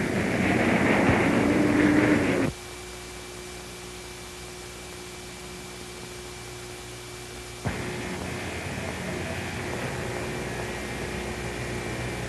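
Hiss and steady hum of an old film soundtrack. A louder rushing noise cuts off abruptly about two and a half seconds in and comes back just as suddenly a little before eight seconds.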